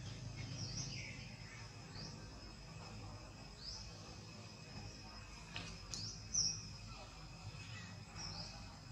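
Outdoor wildlife ambience: a steady high insect hum with short, high chirps every second or two. The loudest chirp comes about six and a half seconds in.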